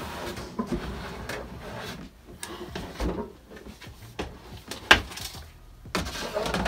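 Plastic storage totes being shifted and their lids handled: scraping and rustling with hollow plastic knocks, the sharpest knock about five seconds in.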